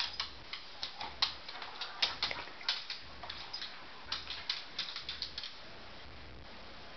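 Dogs' claws clicking and tapping on a hard floor as they move about, in a quick, irregular run that stops about five and a half seconds in.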